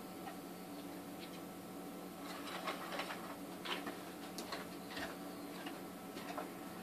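Faint scattered clicks and rustles of long tweezers working tissue paper out of a small shipping tube, over a low steady hum.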